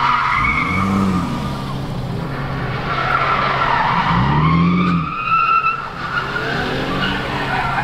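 Car tires squealing in long, wavering screeches as a car spins donuts. Its engine revs up and falls back twice.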